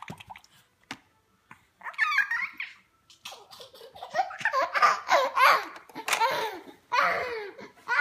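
A baby laughing in fits of quick, choppy giggles, with a long run of belly laughs in the middle.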